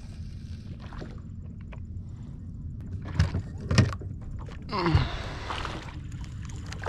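Steady wind and water noise around a small boat, with two sharp knocks a little after three seconds in and a short sound falling in pitch about five seconds in.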